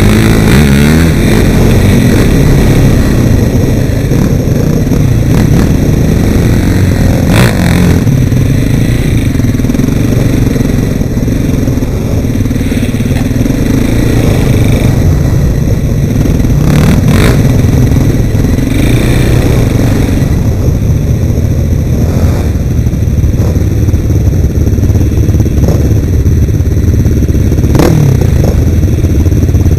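ATV engine running loudly during a trail ride, with about three sharp knocks from the ride over rough ground.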